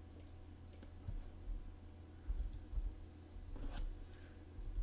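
A few faint, scattered clicks of a computer keyboard and mouse as a value is typed and clicked into, with a small cluster near the end, over a low steady hum.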